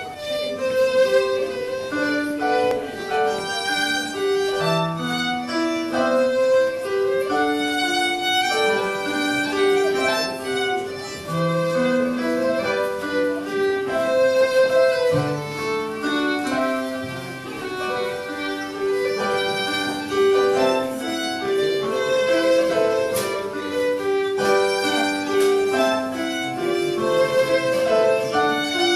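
Scottish traditional fiddle tune played live, a steady run of quick notes, with electronic keyboard accompaniment underneath.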